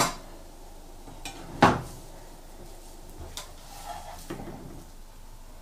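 Metal tongs clinking against cookware as fried patties are lifted from the pan: a clink at the start, a louder one just under two seconds in, and a couple of lighter taps later.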